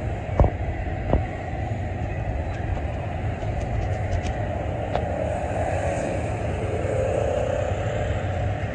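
Union Pacific freight train cars rolling past with a steady rumble, with two sharp clanks a little under a second apart near the start.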